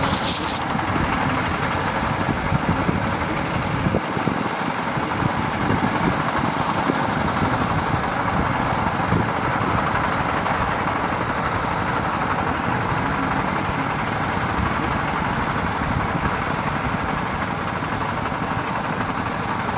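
Two-wheel walking tractor's single-cylinder diesel engine running steadily under load as it pulls a levelling board through a flooded rice paddy.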